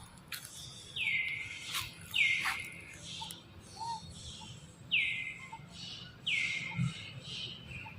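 Five short, high, squeaky animal calls, each dropping sharply in pitch at the start and then holding for about half a second, at irregular intervals, with a few sharp clicks between them.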